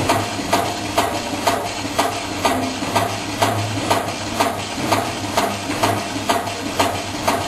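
Gurgen CNC-RV01 CNC rivet machine setting rivets in a steady rhythm, about two sharp strikes a second over a continuous motor hum.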